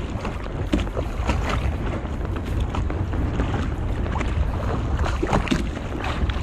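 Wind on the microphone and water around a small wooden boat, with scattered irregular clicks, knocks and drips as a fishing net is hauled in hand over hand over the side.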